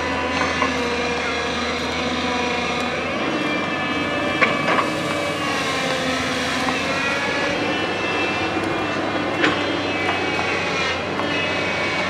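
JCB crawler excavator's diesel engine running under load with its hydraulics working, the engine note shifting as the arm swings and dumps soil. A few short sharp knocks stand out, the loudest about four and a half seconds in and another near nine and a half seconds.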